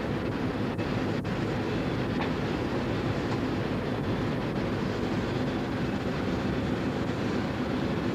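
Steady low rumble and hiss of a ferry's engines and machinery, heard from inside the ship, holding at an even level throughout.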